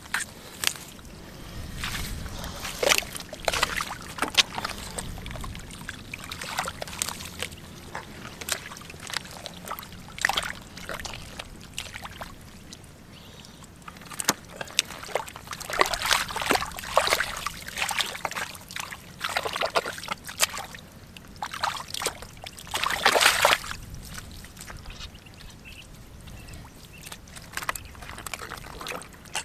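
Hands squelching and sloshing through wet mud and shallow muddy water, in irregular splashy bursts with small clicks and rustles, the loudest a little over twenty seconds in.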